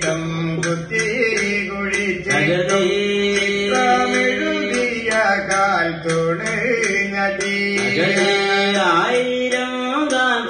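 Thottam pattu, the Kerala ritual song to the goddess Bhagavathi, sung by men in long gliding phrases over a steady beat of short percussive strikes, about two or three a second.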